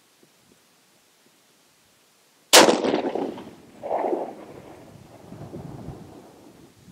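A single shot from a 6.5 Creedmoor Ruger Precision Rifle about two and a half seconds in, its report ringing on and fading over the following seconds, with a second, duller swell about a second after the shot.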